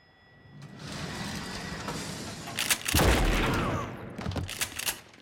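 Gunfire in a room: after a swell of noise, a heavy blast about three seconds in, followed by several sharp shots near the end.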